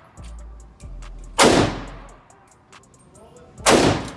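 Two single gunshots from a firearm, about two seconds apart: one about a second and a half in, one near the end. Each is a sharp crack that trails off in an echo over about half a second.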